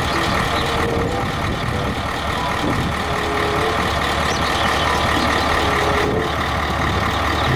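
Heavy tipper dump truck's diesel engine running steadily, with a faint whine held above it.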